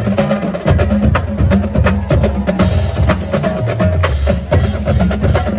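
Marching band music driven by percussion: sharp, wood-block-like hits repeating over low bass notes that step from pitch to pitch.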